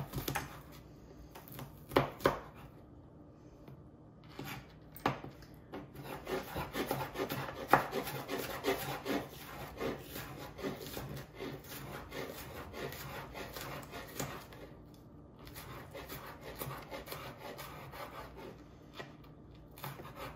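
Large kitchen knife cutting an onion on a plastic cutting board: a few separate slicing cuts at first, then from about six seconds in rapid tapping of the blade on the board as the onion is minced, with two short pauses near the end.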